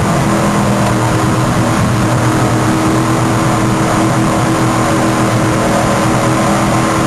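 Off-road 4x4 truck engine running loud at steady revs, its pitch holding level throughout.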